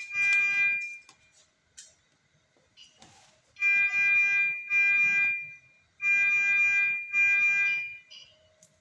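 Electronic alarm sounding long, steady beeps of one fixed pitch, in pairs. A beep ends just after the start, then a pair comes about three and a half seconds in and another about six seconds in.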